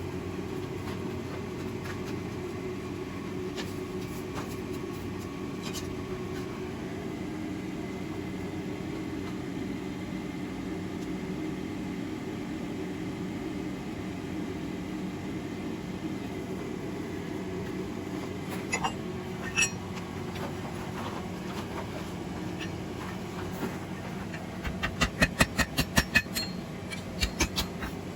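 Hammer blows on a steel bar at the anvil over a steady low rumble: a couple of sharp strikes, then a quick run of about four blows a second near the end, as the point of a forged fireplace poker is refined.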